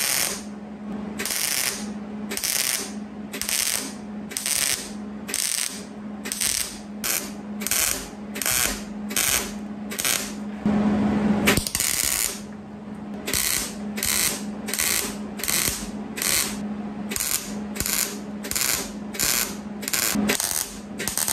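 Wire-feed welder laying short 'tap and zap' stitch welds on steel subframe brackets: arc crackle in short bursts, roughly one and a half a second, with one longer burst about halfway, over a steady low hum. The short bursts are used because good settings on the welder could not be dialled in.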